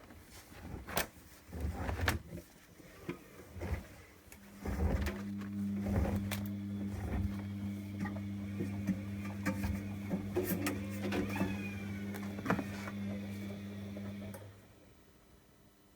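Bosch Avantixx washing machine at the end of its cycle: clicks and knocks, then a steady low hum about four seconds in that lasts around ten seconds and stops suddenly, with more knocks over it.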